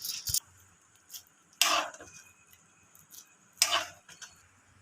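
Two short clatters of metal kitchenware, a pot or utensil knocked about as cooked pasta is taken off the stove, about two seconds apart. A hiss cuts off at the very start.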